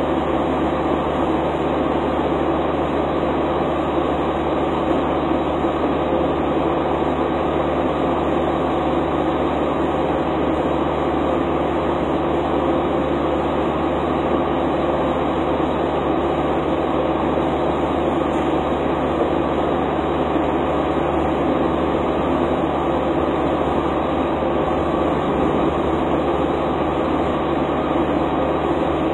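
Steady, unchanging mechanical drone with a rushing hiss from a truck being fuelled at a diesel pump.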